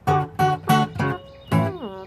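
Acoustic guitar strummed in quick chord strokes during an instrumental break, with a note sliding down in pitch near the end.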